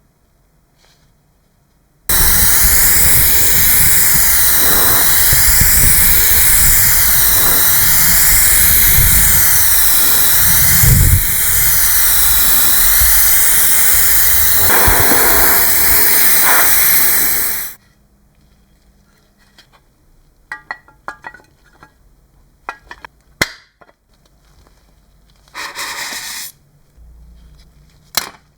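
Loud steady spray hiss lasting about fifteen seconds, then cutting off sharply. A few light clicks and taps follow, then a second, short burst of hiss near the end.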